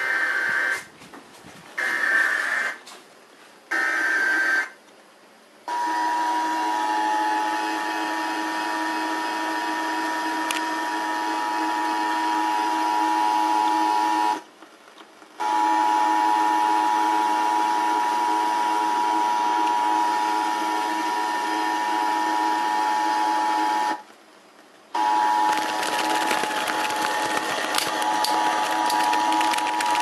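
Emergency Alert System test coming over a radio speaker. In the first few seconds come short, harsh bursts of the digital header data, with brief silences between them. From about six seconds in comes the steady, piercing two-tone attention signal, interrupted twice by a second-long silence.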